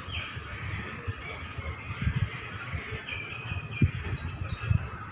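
Passenger coaches rolling slowly past, with a low rumble and irregular low knocks from the wheels. Small birds chirp over it, with a quick run of short falling chirps near the end.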